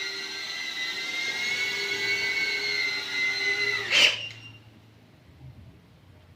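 Cinewhoop drone's brushless motors spinning Gemfan D51 five-blade ducted propellers with a steady high whine. About four seconds in, the pitch dips and the whine cuts off with a brief knock, leaving only a faint low hum.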